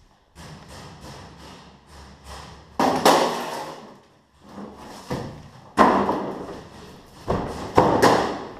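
Metal locker doors banging as they are opened and shut. A few softer knocks come first, then four loud bangs from about three seconds in, each ringing briefly.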